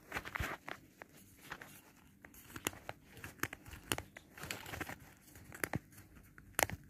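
Cat toy on a wand being shaken and handled: faint crinkling rustles with irregular sharp clicks.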